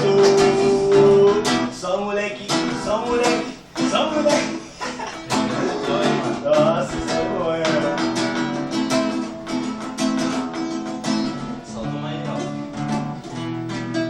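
Acoustic guitar music, strummed and plucked, with sustained chords.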